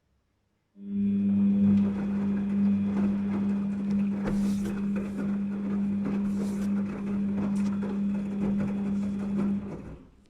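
Daewoo DWD-FT1013 washing machine on a Cotton 40°C wash: the motor starts about a second in and turns the drum with a steady hum, with irregular ticking and splashing over it. It stops after about nine seconds, as the drum pauses between turns of the wash.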